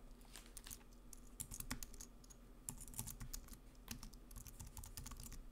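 Computer keyboard typing: a quick, irregular run of faint key clicks.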